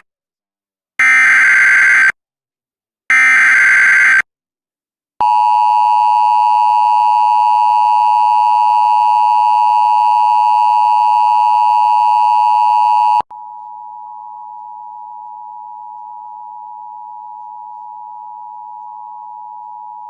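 Emergency Alert System broadcast tones. Two loud, buzzy digital header bursts of about a second each are followed by the steady two-tone attention signal for about eight seconds. About thirteen seconds in it drops suddenly to a quieter steady tone at the same pitch, announcing a flash flood warning.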